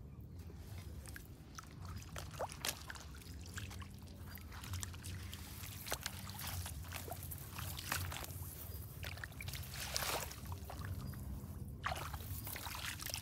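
Water splashing and sloshing as someone wades in sandals through a shallow muddy stream, with many short irregular splashes and squelches.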